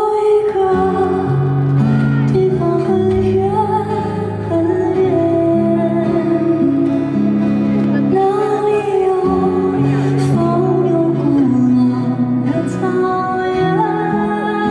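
Audience-shot live recording of a slow song: a high male voice sings long, held notes over sustained instrumental accompaniment.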